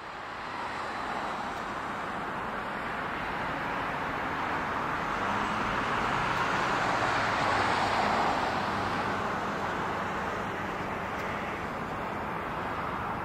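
Rolls-Royce RB211 engines of a British Airways Boeing 767: a steady jet rush that swells to its loudest about eight seconds in, then eases slightly.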